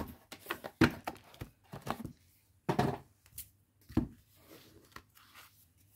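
A deck of oracle cards being handled and taken out of its cardboard box: irregular taps and knocks of card against box and table, with soft sliding and rustling between.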